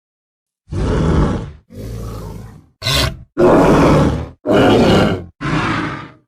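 Dinosaur creature sound effects for a Pachyrhinosaurus: six separate grunts and roars, each under about a second, with dead silence between them.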